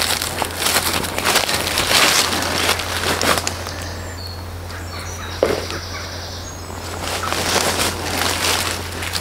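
Rustling and crackling of leaf litter, undergrowth and cord being handled while a tarp corner is pegged out. The rustling comes in bursts near the start and again near the end, with a few faint bird chirps in the quieter middle.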